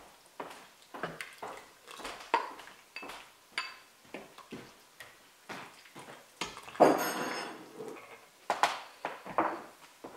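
A ladle clinking and scraping against the stainless-steel inner pot of an electric pressure cooker and a ceramic bowl as soup is served: a string of short knocks and clinks. The loudest clatter comes about seven seconds in, and the bowl is set down on the counter near the end.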